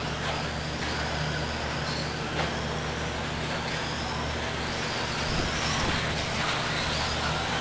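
Brushless electric motors of 1/10-scale RC cars, among them a Schumacher CAT 3000 with a 21.5-turn motor, whining as the cars lap, the pitch rising and falling as they accelerate and brake. Under them runs a steady low hum, with a few short knocks.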